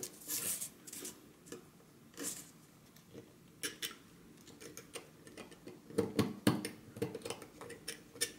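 Hobby knife blade scraping and shaving printing imperfections off the edges of a 3D-printed plastic case: a series of short, irregular scratches and clicks, busiest near the end.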